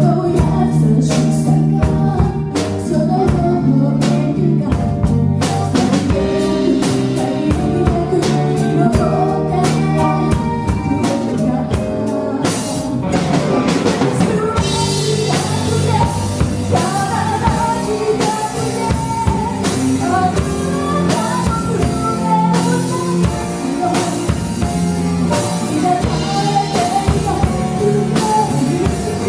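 Live band playing a pop song with drum kit, electric guitar, bass and keyboard, a woman singing lead into a microphone. The instruments carry the first half and the singing comes through more clearly from about halfway.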